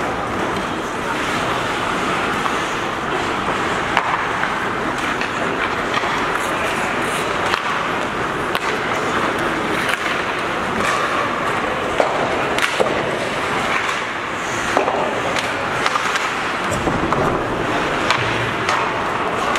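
Ice hockey play: skate blades scraping and carving on the ice, with sharp clacks of sticks and puck now and then.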